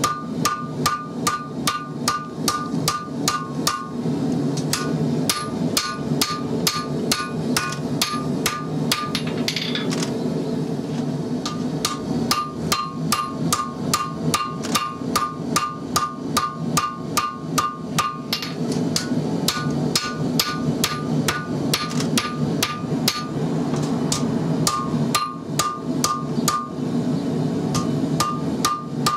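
Hand hammer forging a red-hot XC75 carbon-steel knife bar on an anvil: rapid ringing metal-on-metal blows at about three a second, in runs broken by a few short pauses. A steady low hum runs underneath.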